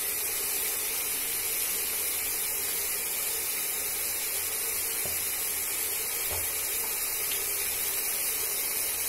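Onion, garlic and ginger paste frying in oil in a wok, a steady sizzling hiss, with a couple of faint taps of the wooden spatula in the middle.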